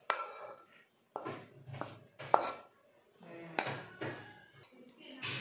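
Steel spoon scraping and knocking against a coated frying pan as a thick, crumbly milk-sweet mixture is scraped out, giving about five sharp clinks with short scrapes between them.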